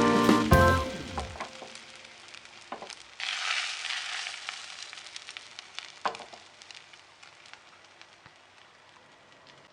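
Frozen meat-wrapped cheese rolls sizzling in a frying pan, the fat crackling with a few sharp pops. The sizzle swells suddenly about three seconds in, then fades steadily away. A short stretch of music dies out in the first second.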